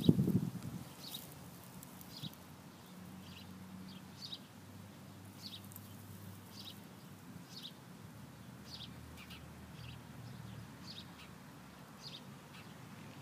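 A bird chirping over and over, short high chirps roughly once a second, over a faint steady low hum. A brief low rumble of wind on the microphone comes right at the start.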